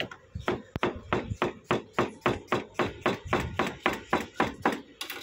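Kitchen knife slicing a cucumber on a cutting board, about four quick, even strokes a second, each blade stroke knocking against the board.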